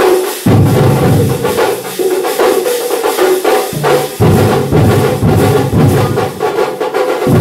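Thambolam percussion band playing a fast drum rhythm, with deep bass drum beats that drop out for about two seconds in the middle and come back in.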